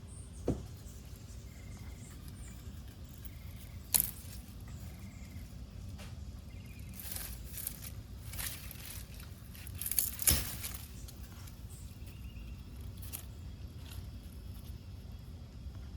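Outdoor ambience with a steady low rumble, two sharp clicks (the louder about four seconds in) and several rustling bursts between about seven and eleven seconds, with a few faint short chirps.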